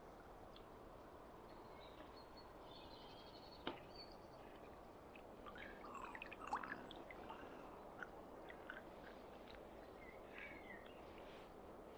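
Faint steady flow of a shallow river, with small splashes and drips around the middle as water runs off a hand-held brown trout back into the stream. A single sharp tap a few seconds in, and birds chirping faintly.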